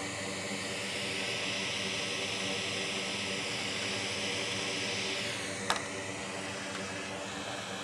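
Steady hiss of blowing air from a hot air rework station over a fan hum. The hiss eases off about five seconds in, and a single sharp click follows.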